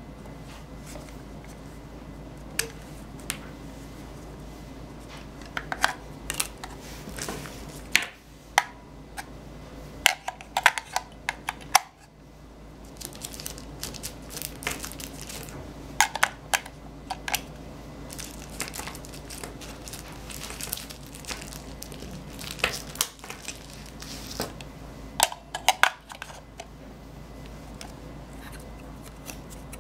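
Irregular clicks and clatter of AA batteries being handled and pushed into the plastic battery compartment of a lamp base, over a steady low hum.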